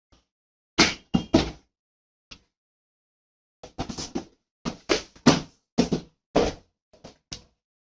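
Short knocks and clatters of a hair dryer, a straightener and their box being handled during unboxing: a few knocks about a second in, a pause, then a dozen or so quick knocks through the second half.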